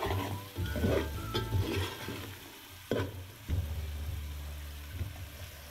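Steel ladle stirring and scraping cluster beans around an aluminium pot, metal scraping on metal in several strokes, while the spiced oil sizzles as the beans fry.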